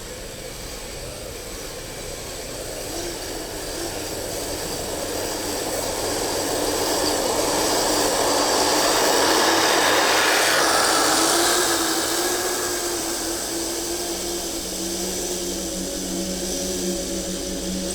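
Electric drive of a Kyosho Blizzard SR radio-controlled snowcat running, a whine with track and gear noise that grows louder to a peak about halfway through and then falls away, as if it drives past.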